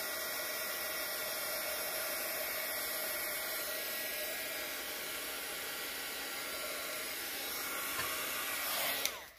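Handheld craft heat gun blowing a steady rush of hot air over epoxy resin in a coaster mould, switched off near the end and winding down quickly.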